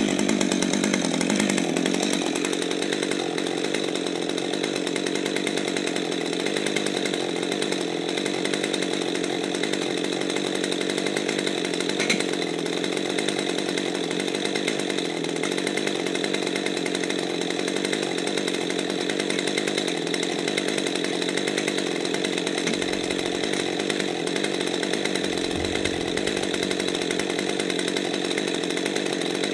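Husqvarna 550 XP Mark II two-stroke chainsaw idling steadily after a cut, with one sharp click about twelve seconds in.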